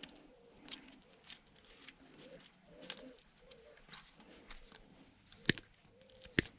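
Small clicks of hand tools working an electric toothbrush apart, with two sharp snaps near the end as parts come free. A bird coos faintly and repeatedly in the background.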